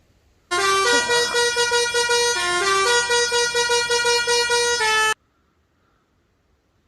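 A short brassy-sounding musical jingle with quick repeated notes over shifting chords, starting about half a second in and cutting off abruptly after about four and a half seconds.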